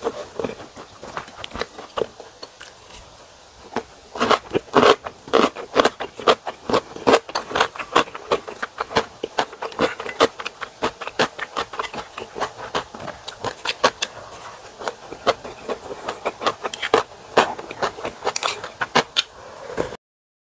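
Close-miked eating of spicy ramen noodles and gimbap: chewing with many crisp mouth clicks, mixed with chopsticks and a wooden ladle scraping the ceramic bowl. Sparse at first, then dense clicking from about four seconds in.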